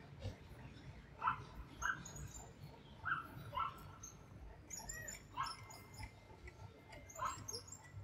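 Short animal calls in pairs, about every two seconds, with high chirps from birds and a low hum of the street beneath.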